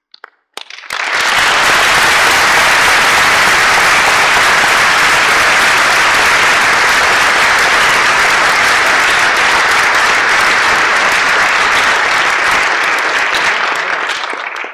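Audience applause: a few scattered claps, then within about a second full steady clapping that tapers off near the end.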